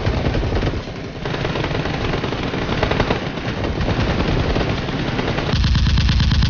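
Rapid bursts of automatic gunfire, dense and overlapping. About five and a half seconds in it turns into a steadier, evenly repeating stream of shots.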